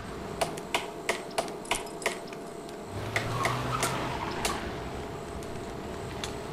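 A cane tapping sharply, about three taps a second, then a few more scattered taps, over steady street background noise. A low hum comes in briefly in the middle.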